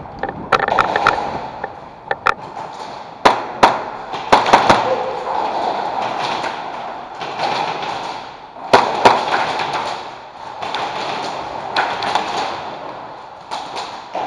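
Sharp snaps of airsoft guns firing and BBs striking hard surfaces, in scattered single shots and short clusters. Under them runs a continuous rustling of gear and movement.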